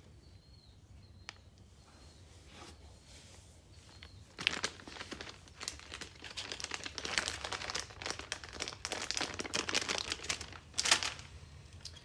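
Plastic fishing-lure packaging crinkling and rustling as it is handled, starting about four seconds in and going on as dense crackling for some six seconds, with one sharp crackle near the end.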